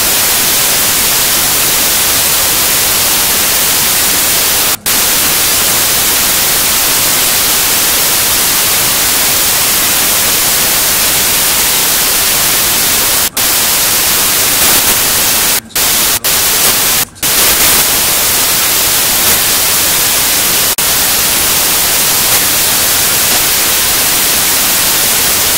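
Loud, steady static hiss like white noise, strongest in the high end, cutting out for a split second about five times.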